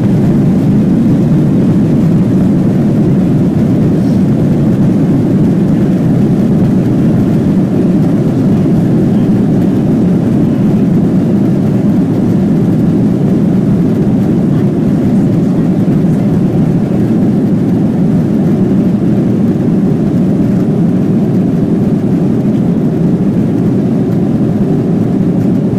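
Airliner cabin noise as the plane rolls along the ground: a loud, steady rumble of engines and airframe.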